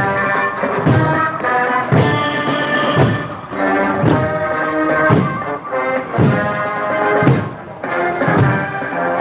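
Marching drums beating about once a second under a brass march tune.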